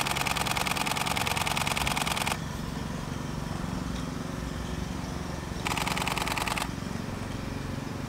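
Canon DSLR shutter firing in rapid continuous bursts: one run of about two and a half seconds at the start, then a shorter run of about a second near the six-second mark.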